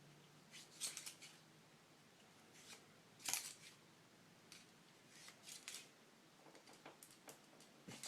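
Cloth patch on a cleaning tool being worked in and out of a revolver's cylinder chambers: faint, irregular scraping and clicking strokes, the loudest about three seconds in.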